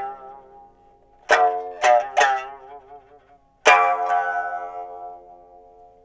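Biwa (Japanese lute) played in sparse plucked strokes: a note dies away, then three quick strokes come a little after a second in. A single strong stroke past the middle rings on and slowly fades.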